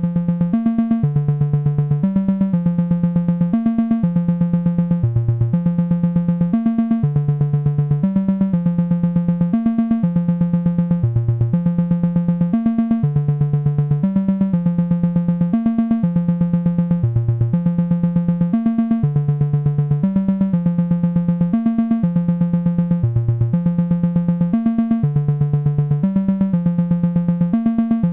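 Analog modular synthesizer patch: an oscillator voice plus two subharmonic voices from two Noise of Antimatter Subshaper modules running in parallel. Together they play a repeating sequence of low, stepped notes with a buzzy tone.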